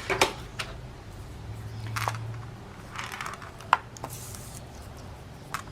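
Paper being handled while a pocket is made for a junk journal: soft rustles and a few scattered light clicks.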